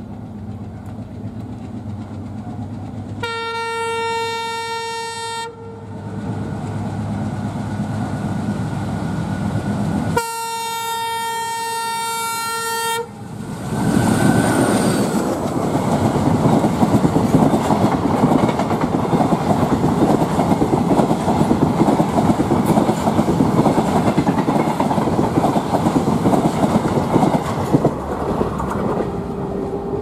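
WDM3D ALCO diesel-electric locomotive approaching with its engine running, sounding its horn twice, first about two seconds long, then about three seconds. It then runs past at speed, the coaches rattling loudly over the rail joints until they die away near the end.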